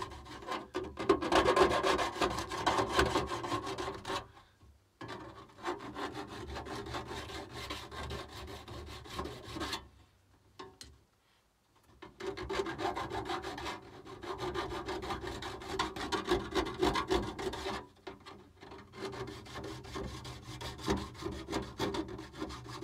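Hand file rasping back and forth over freshly grinder-cut slots in a metal cover, taking off the burrs. It files in quick strokes, in bouts that stop briefly about five, eleven and eighteen seconds in.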